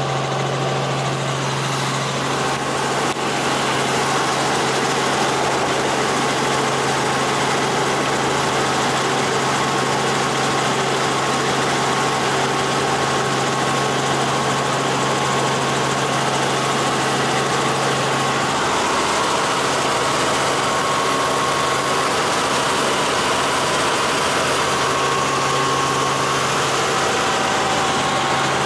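Light helicopter's engine and rotor drone heard from inside the cabin in flight: a steady hum with a strong low tone. The low tone fades for several seconds about two-thirds of the way through and returns near the end.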